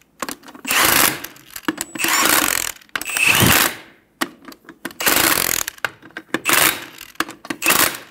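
Milwaukee Fuel cordless impact wrench hammering lug nuts snug onto a steel wheel, in about six short bursts with brief pauses as it moves from nut to nut.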